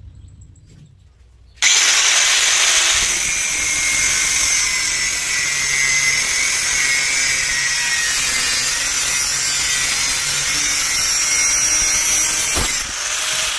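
Electric arc welding: the arc strikes suddenly and hisses and crackles steadily for about eleven seconds, then breaks off near the end.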